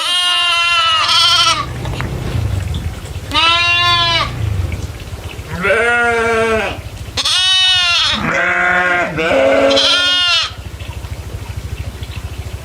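Goats bleating, about six calls in a row at several different pitches, some of them wavering, over a low steady rumble. The calls stop about two-thirds of the way through.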